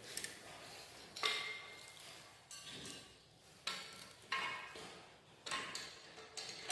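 Light metallic clinks and taps, about seven of them spaced roughly a second apart, each ringing briefly: metal tools and parts of a manual push tile cutter being handled while it is adjusted by hand.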